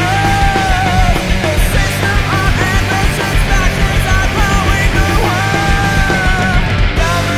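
Post-punk rock song, a full band recording with a steady pulsing beat and long held high notes.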